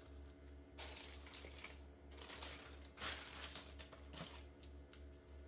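Faint rustling and crinkling of tissue paper and a cardboard shoebox as a sneaker is handled in the box, loudest about three seconds in, with a shorter rustle a second later.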